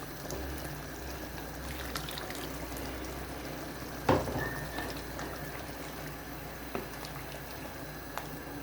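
Pot of Ofada stew bubbling on the heat with the meat stock just added: a steady simmering hiss. There is one sharp knock about four seconds in and a few faint ticks.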